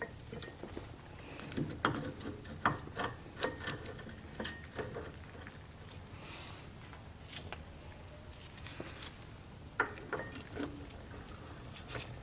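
Light metallic clicks, clinks and short scrapes of hand work on a disc brake caliper and its parts, coming in quick clusters about two seconds in and again about ten seconds in.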